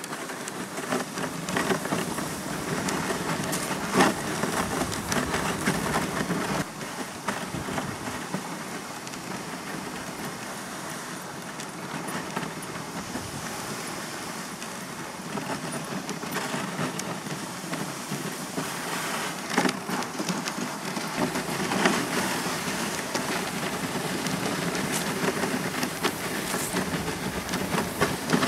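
A dog sled running over a snow-covered trail behind its dogs: a steady scraping and crunching of the runners on snow with a dense patter of small clicks and rattles, and a few louder knocks along the way.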